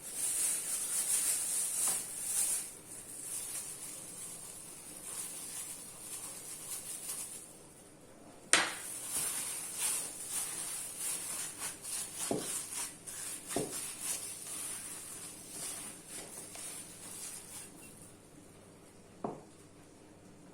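Hands kneading a soft flour, water and oil dough in a bowl: uneven rubbing and squishing, with a few sharp knocks, the loudest about eight and a half seconds in.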